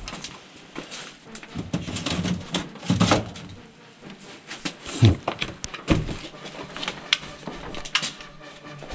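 Irregular rustles and knocks, with louder thumps about two, three, five and six seconds in.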